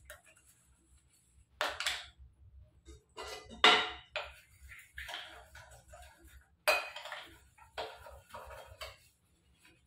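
Stainless steel utensils being scrubbed with a scouring pad and knocking against other pots in a kitchen sink, in irregular bursts, the loudest about three and a half seconds in.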